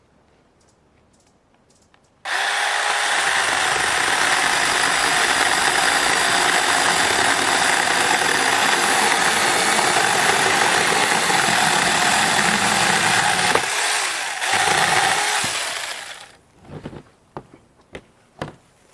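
Battery-powered brushless mini chainsaw running at full speed for about fourteen seconds. It starts and stops abruptly, and its pitch dips briefly a couple of times near the end. A few light clicks and knocks follow.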